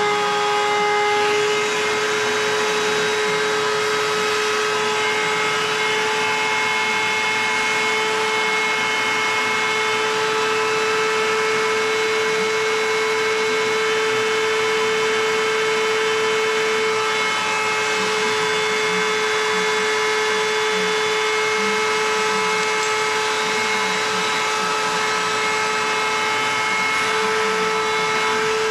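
Shop vacuum running with a steady, high motor whine, sucking engine coolant out through the loosened bottom front cooler hose of a snowmobile engine.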